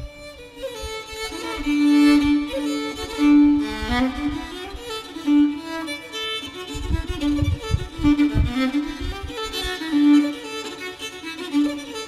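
Background music: a melody of held notes on a violin-like bowed string instrument, with deep low notes coming in about seven seconds in.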